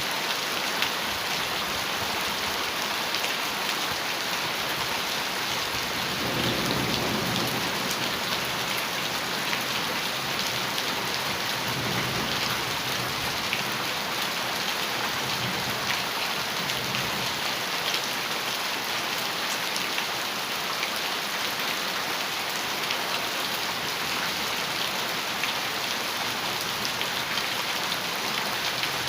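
Heavy rain drumming steadily on a metal roof, a dense patter of drops. Low rumbles of distant thunder rise at about 6 seconds, again at about 12 seconds and around 16 seconds.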